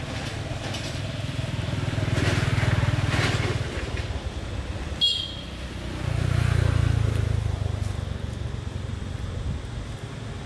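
Motor vehicle engines going past, a low rumble that swells twice and fades. About halfway there is a brief high squeak.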